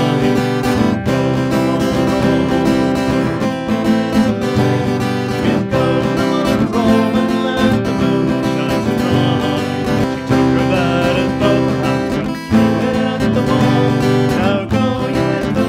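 Steel-string acoustic guitar strummed steadily in a lively folk song, with a man's singing voice at times.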